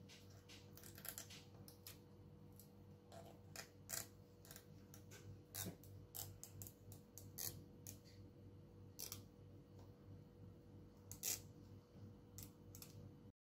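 Faint, irregular crackling and clicking of thin protective plastic film being picked at and peeled off a portable CD player's display window.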